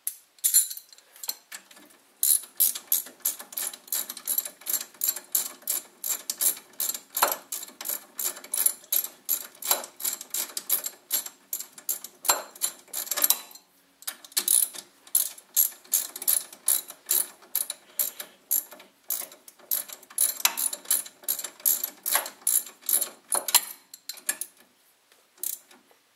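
Socket ratchet wrench clicking in quick runs as the bolt holding the brake line bracket is run in, with a short pause about halfway.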